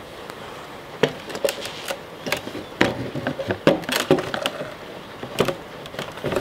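Metal carburetor parts clicking and clunking against a plastic tub as they are set down into it: a quick irregular run of sharp knocks starting about a second in.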